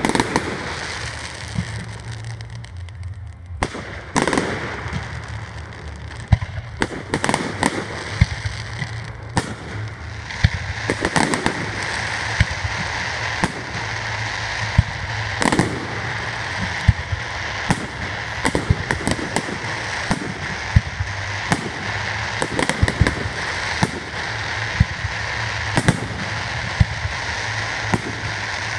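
Aerial firework shells bursting one after another, with dozens of sharp bangs at irregular intervals over continuous crackling. The crackle thickens from about ten seconds in.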